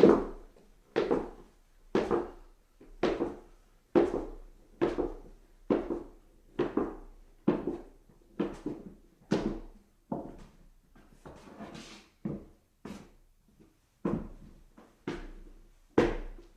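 Footsteps on stairs: one dull thud after another at about one step a second, each dying away quickly, with a quieter, scuffing stretch a little past the middle.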